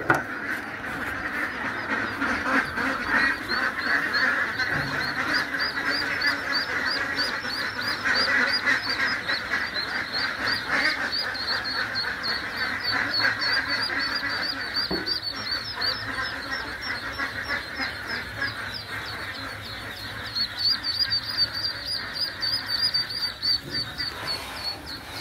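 A large flock of khaki Campbell ducklings peeping all together: a dense, steady chatter of many short, high, overlapping peeps.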